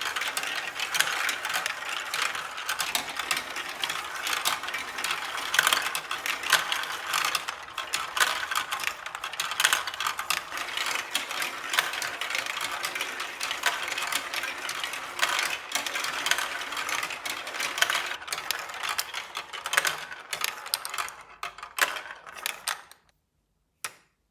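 Marbles rolling and clattering through a LEGO Duplo plastic marble run: a dense stream of rattling clicks that thins out near the end and stops, with one last click just before the end.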